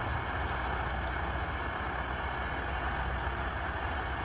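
Liquid-fuel Primus camp stove burner running at full flame under a steaming pot: a steady rushing hiss over a low rumble.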